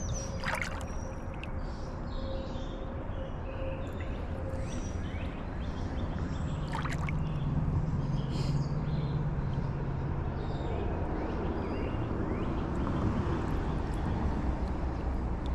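Creek water rushing and gurgling around riffles in a steady wash, with a few faint short chirps on top.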